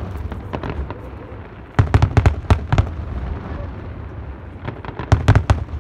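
Aerial firework shells bursting in a professional display: a rapid cluster of sharp bangs about two seconds in and another near the end, with scattered single bangs between, over a continuous low rumble.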